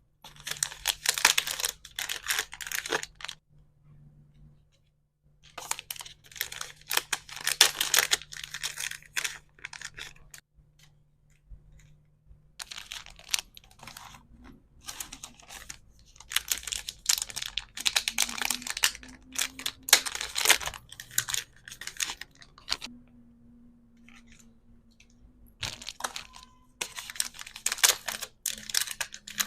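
Packaging for resin hair clips being handled: crinkling and tearing with crisp clicks, in four bursts of a few seconds each with short pauses between.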